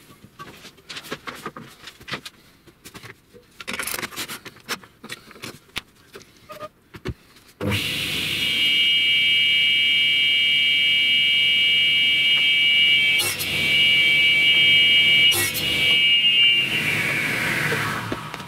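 A few light knocks and clicks of handling, then about seven and a half seconds in a table saw starts and runs with a steady high whine, with a couple of sharp knocks; the pitch sags near the end.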